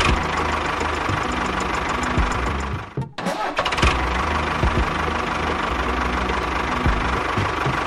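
Tractor engine starting and running with a steady chug. The sound breaks off briefly about three seconds in and then picks up again.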